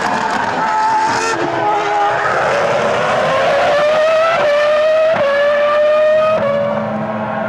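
Formula One car's 3.0-litre V10 engine at high revs. Its pitch falls as it passes and heads away, then climbs in steps through several quick upshifts as the car accelerates.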